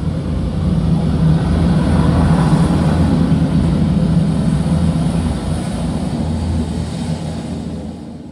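Deep, rumbling sound effect from a Dolby Atmos demo trailer, played loud through a Zebronics Zeb-Juke Bar 9400 Pro 5.1 soundbar and subwoofer. It has heavy bass, swells through the first few seconds, holds, and fades out near the end.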